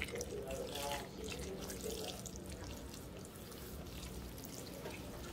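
A hand squeezing and swishing soaked rice in water in a stainless steel pot: irregular wet sloshing and small splashes.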